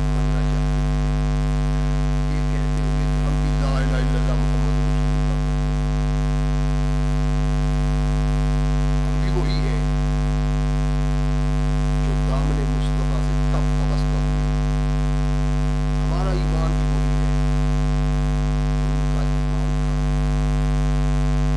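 Loud, steady electrical mains hum on the microphone and sound system, with faint snatches of a man's voice breaking through now and then.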